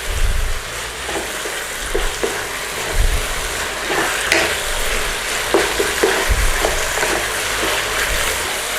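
Kung Pao chicken sizzling in a hot pan as the sweet and sour sauce cooks down. A steady hiss is broken by irregular knocks and scrapes of the utensil stirring it against the pan.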